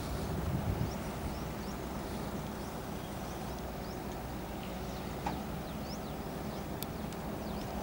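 Steady low hum of distant diesel construction machinery running, with birds chirping in short, repeated upward notes.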